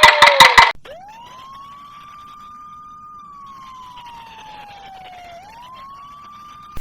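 A rapid loud clattering cuts off abruptly within the first second. Then a single siren wails, winding up to a steady high note, slowly sinking, and winding up again near the end.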